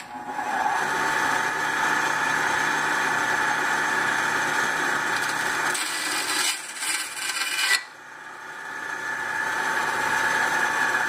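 Bandsaw switched on with a click, then running with a steady whine and hum. About six seconds in, the blade cuts through a hollow plastic pen barrel for about two seconds with a harsher hiss, and the saw runs on.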